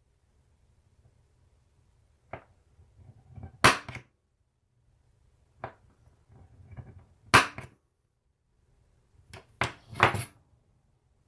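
Hammer striking a transfer punch to mark hole centres on a flat bar: sharp strikes with quiet between them, a light tap followed by a harder blow, three times over.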